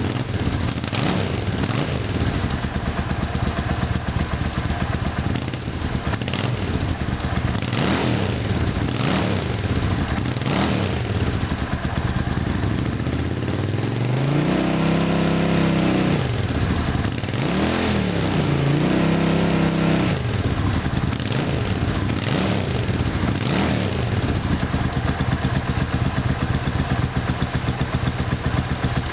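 2005 Suzuki S50's carbureted V-twin, breathing through Vance & Hines Classic II slip-on mufflers, idling. About halfway through it is revved twice, held up for a couple of seconds each time, and settles back to idle.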